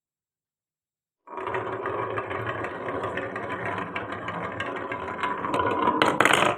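Marbles rolling along a wooden marble run track in a steady rattling roll. Near the end come a few loud clacks of marbles striking wood.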